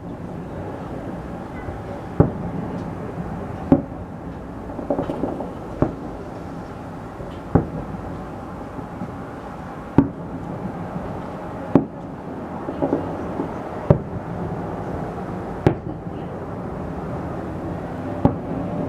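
Fireworks salute going off: about nine sharp bangs, one roughly every two seconds, each echoing briefly over a steady background noise.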